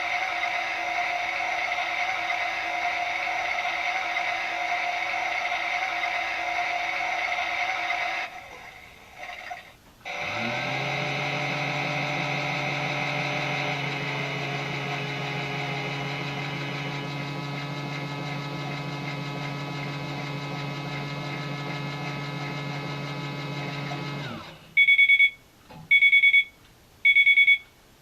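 Miele Softtronic W4146 toy washing machine running through its cycle: a steady high whine that stops about eight seconds in, then after a short pause a lower hum that winds up and runs steadily. Near the end it stops and the machine gives three loud electronic beeps about a second apart, signalling the end of the cycle.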